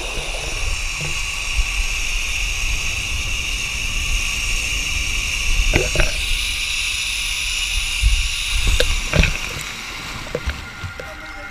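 Hammock zip-line trolley running along its overhead cable with a steady high whir, over a low rumble of wind on the microphone. A few knocks come around the middle and again later, and the whir dies away shortly before the end as the ride slows near the water.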